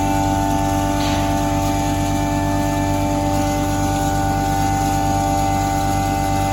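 Double-chamber maize grinder machine running steadily: a constant mechanical hum with several held tones, and a brief hiss about a second in.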